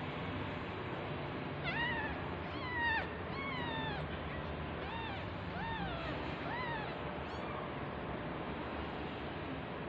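A newborn kitten mewing in a rapid series of about eight short, high-pitched calls, each rising and falling, while it is held upside down. The calls are typical neonatal distress mews. A steady hiss runs underneath.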